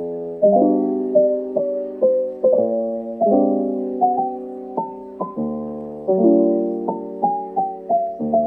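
Solo piano background music: a melody of struck notes, two or three a second, each fading away over held lower chords.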